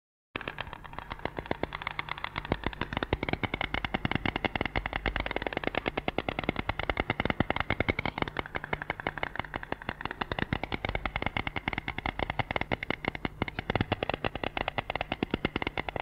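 White stork clattering its bill: a rapid, sustained run of clacks that starts just after a brief break and carries on without pause.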